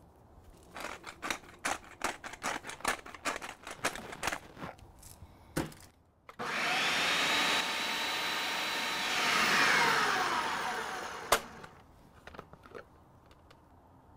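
Food processor blending chimichurri sauce: a loud steady motor whine for about five seconds, dropping in pitch over its last couple of seconds and ending with a sharp click. Before it comes a run of rapid gritty clicks from pepper being ground into the bowl, then a single knock.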